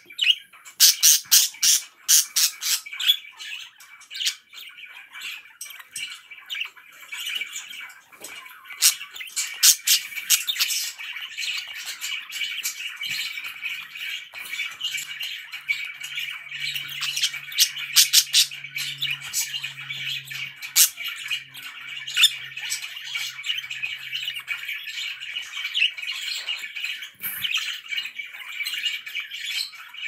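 Pet budgerigar chattering continuously, with many sharp chirps and squawks over the warble, most of them in the first dozen seconds.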